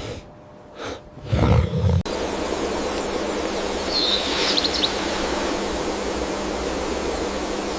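Two short low animal growls in the first two seconds, then a sudden change to steady outdoor noise with a brief high bird chirp about four seconds in.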